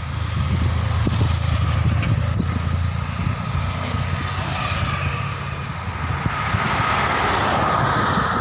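Passing road traffic: motorcycle engines going by close over a steady low engine rumble, with a swelling rush of engine and tyre noise in the last few seconds as another vehicle comes near.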